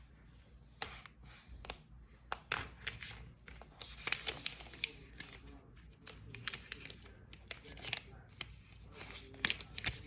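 Protective wrapping being peeled and pulled off a new iPad Pro, with irregular sharp crackles and tearing that grow busier about halfway through.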